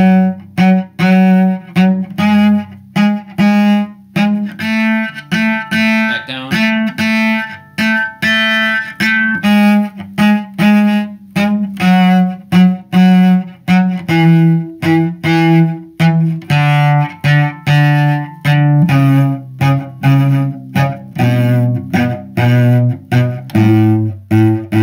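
Cello playing a one-octave A major scale on its G and D strings in slow 6/8 hooked bows. Each long note is followed by a short staccato note on the same bow, with a little gap between them. The pitch climbs through the first half and comes back down to the low A near the end.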